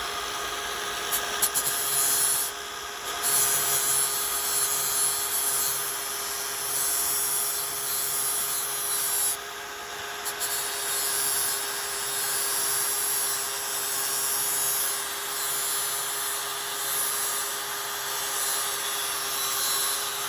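Angle grinder running continuously with a steady motor whine while its wheel grinds down a weld bead on thin sheet metal. The grinding noise swells and eases with the pressure on the wheel and drops out briefly twice, as the wheel comes off the metal.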